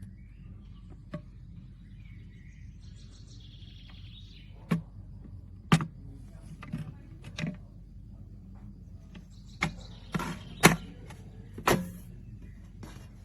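A run of about eight sharp clicks and knocks, a few of them louder, over a steady low hum.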